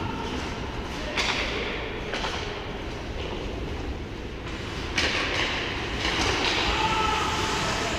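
Ice hockey play on a rink: steady rumble and scraping of skate blades on the ice, with two sharp skate scrapes, one about a second in and one about five seconds in.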